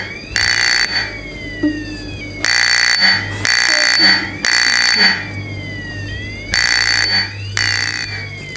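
Fire alarm horns sounding in a temporal-three pattern: three half-second blasts, then a pause, repeating. A tone sweeps slowly up and down throughout, marking the building alarm as in full activation.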